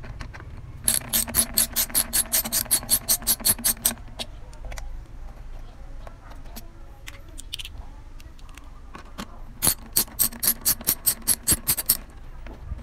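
Socket ratchet clicking quickly as two bolts are loosened off a motorcycle frame, about seven clicks a second. One run of about three seconds starts about a second in, and a second run of about two seconds comes near the end.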